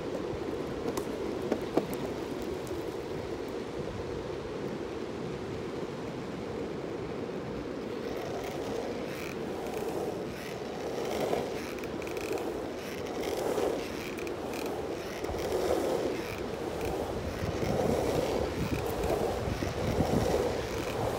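Longboard wheels rolling on an asphalt path, a steady rumble, with two sharp clicks in the first couple of seconds. About eight seconds in, the rumble starts to swell and fade roughly once a second.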